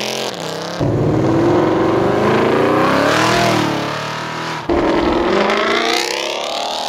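Ford Mustang GTs' 5.0-litre V8s accelerating away one after another, the exhaust rising in pitch as each car pulls off. The sound changes abruptly about a second in and again near five seconds in as one car gives way to the next.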